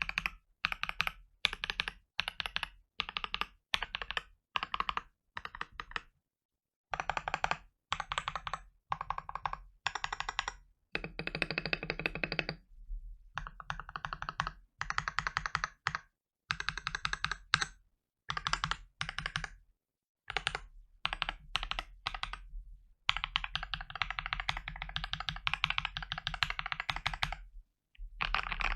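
Typing on a Gamakay LK67 mechanical keyboard with lubed Akko CS Lavender Purple tactile switches, in quick bursts of keystrokes broken by brief pauses, with one longer run of typing near the end.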